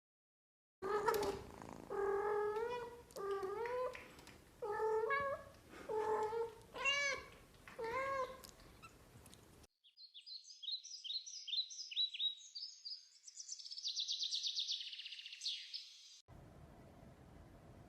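A cat meowing about eight times in a row, each meow short with a rise and fall in pitch. About ten seconds in, a different sound follows: a rapid string of high-pitched chirps lasting several seconds.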